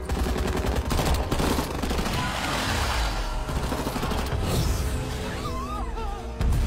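Movie action-scene soundtrack: rapid volleys of automatic gunfire over dramatic background music, with a short warbling cry near the end and a sudden loud hit right at the close.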